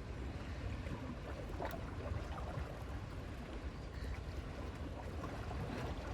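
Steady outdoor background of wind rumbling on the microphone and sea water washing against the breakwater, with a few faint clicks.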